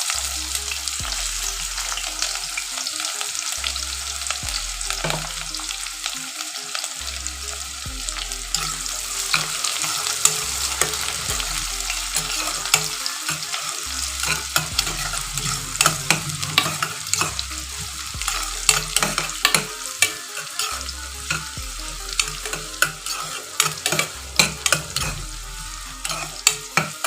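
Onions frying in hot mustard oil in a karahi, sizzling steadily while a spatula stirs and scrapes against the pan. The spatula clicks come thicker and sharper from about the middle on.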